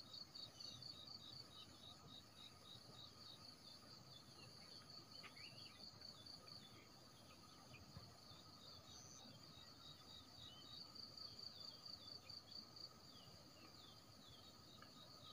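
Faint, high-pitched insect chirping pulsing steadily a few times a second, with a few short chirps scattered through it.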